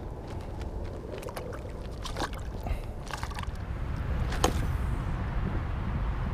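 Water sloshing and splashing at the side of a kayak as a largemouth bass is released, with scattered clicks and knocks from handling the fishing gear. The sharpest click comes about four and a half seconds in, over a steady low rumble.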